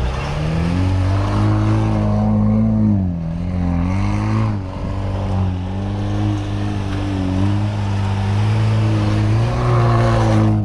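Jeep Wrangler Rubicon's engine revving hard as it spins donuts in loose sand, its pitch dipping and climbing again several times as the driver works the throttle.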